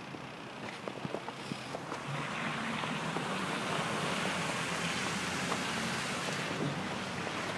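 Outdoor street noise in light snowfall: a steady rushing hiss that swells after about two seconds and eases near the end, with a few faint ticks in the first two seconds.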